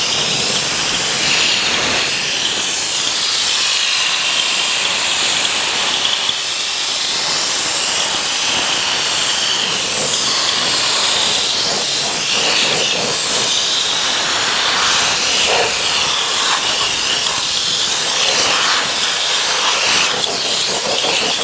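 Compressed-air undercoating spray gun with a suction-feed bottle spraying Fluid Film rust-proofing oil: a loud, steady hiss of air and oil mist that shifts a little in tone as the nozzle is moved around.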